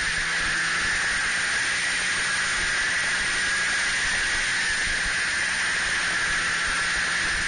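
Snowmobile running at a steady speed, heard as a loud, even hiss of engine, track and rushing air with a faint low engine hum underneath and no change in pitch.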